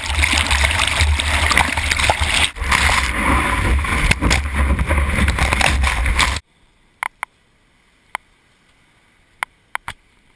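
Water rushing and splashing over a GoPro in its waterproof housing on the tail of a surfing longboard, with a heavy low rumble. It cuts off suddenly about six seconds in, leaving a very quiet stretch with a few faint clicks.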